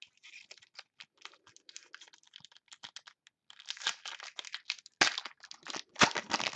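Foil wrapper of a trading-card pack being torn open and crinkled by hand: a quick run of crackles and rustles, with a few louder bursts in the second half.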